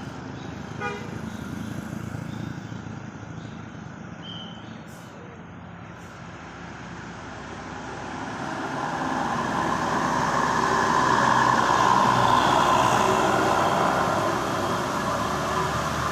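A bus passing with its Basuri telolet horn sounding, over traffic noise that swells from about halfway and is loudest a few seconds before the end.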